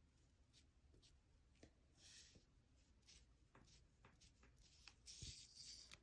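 Faint scratching of an oil pastel stick on paper as highlights are laid onto the drawing, with scattered light ticks. Two short scratchy strokes stand out, about two seconds in and near the end.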